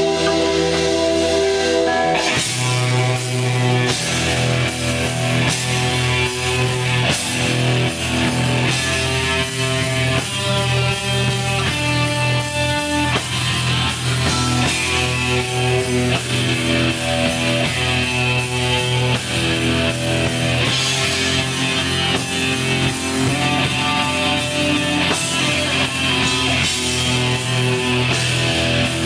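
Black metal band playing live: distorted electric guitars hold chords, and about two seconds in the bass and drums come in hard. From there the full band plays on at a steady, loud level.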